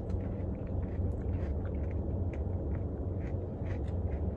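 Chewing and small eating clicks while eating a Blizzard of soft-serve ice cream with pie crust and apple pieces, over a steady low rumble.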